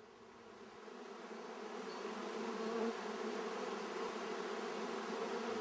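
Honeybees humming at an open hive, a faint steady drone that fades in over the first second or two.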